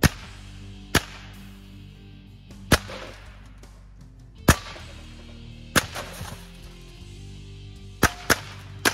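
Savage 64F semi-automatic .22 LR rifle firing about eight single shots at irregular intervals, the last three coming quicker together near the end, over steady background music.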